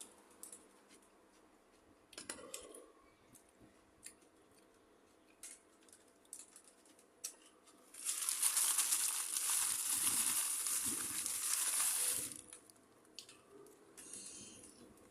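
Scattered small clicks, then about eight seconds in a loud crinkling rustle lasting about four seconds before it stops.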